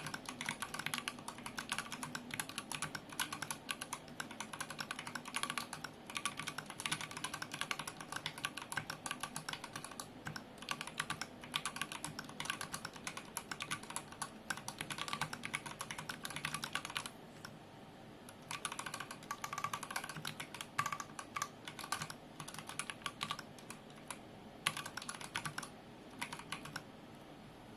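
Typing on a UniGo66 mechanical keyboard with stock Durock T1 67 g tactile switches and GMK ABS keycaps: fast, dense keystroke clacks, thinning briefly about two thirds through and stopping shortly before the end.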